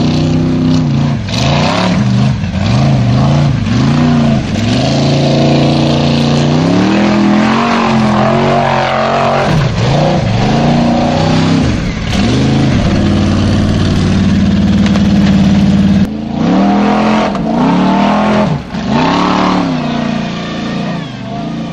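Formula Offroad street-legal Jeep's engine revving hard, its pitch rising and falling again and again as the throttle is worked on a steep gravel climb.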